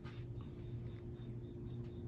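Hampton Bay Tiffany Sonoma ceiling fan's 172x17mm spinner motor running with a steady low hum, a faint high tick repeating about four times a second, and a brief click at the start.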